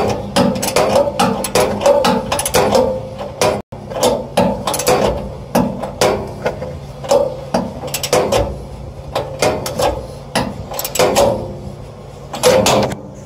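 Socket ratchet wrench clicking in quick, uneven strokes as bolts are cranked tight, with a split-second break about four seconds in.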